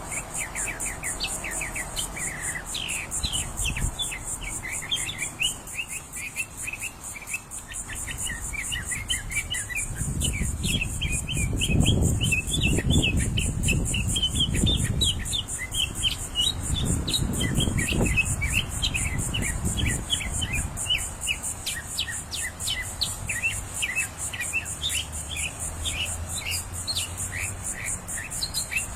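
Many small birds chirping continuously in quick, short, high notes over a steady, high, rapidly pulsing insect buzz. A low rumble rises beneath them about a third of the way in and fades out by about two-thirds.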